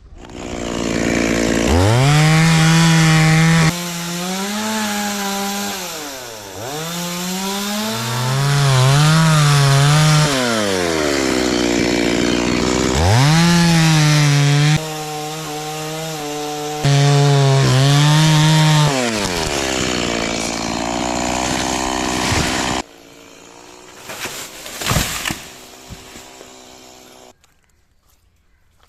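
Stihl two-stroke chainsaw starting to rev, then running hard through wood, its engine pitch rising and falling again and again. It stops abruptly about three-quarters of the way through, followed by a few brief knocks.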